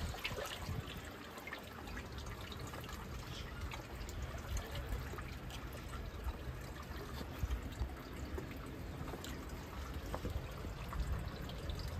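Seawater trickling and lapping in a rock pool, a steady low wash with faint ticks and drips.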